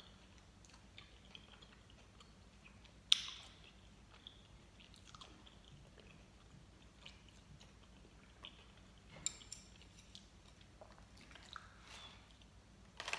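Faint closed-mouth chewing of soft gummy candy: small moist mouth clicks, with a few sharper clicks, the loudest about three seconds in.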